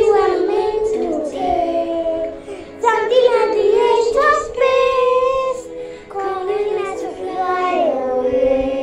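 A girl singing into a handheld karaoke microphone, along with a recording of the song with its original vocals playing behind her.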